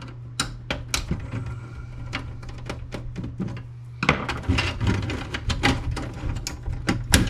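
Plastic parts of an inkjet printer being handled and pried apart during disassembly: irregular clicks and knocks that come faster and louder from about four seconds in. A steady low hum sounds under them and stops about four seconds in.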